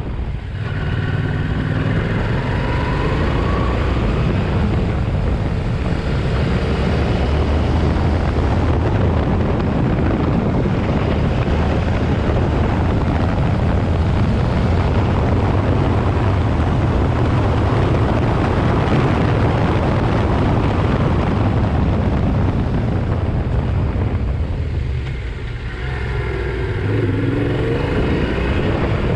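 Yamaha Ténéré 700's parallel-twin engine running under way, with wind noise on the microphone. It revs up near the start, and a little before the end the throttle closes briefly and the engine picks up and revs up again.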